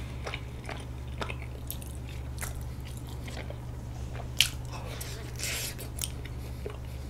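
Close-miked chewing of soft, sticky half-moon rice cake (banDal-tteok): scattered small wet mouth clicks, with one sharper click about four and a half seconds in.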